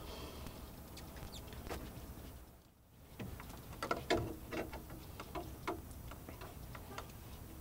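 Spin-on oil filter being unscrewed by hand from a boat generator's engine: faint, irregular clicks and taps of hand and filter against the housing, most of them in the second half, with a brief drop to near silence about halfway.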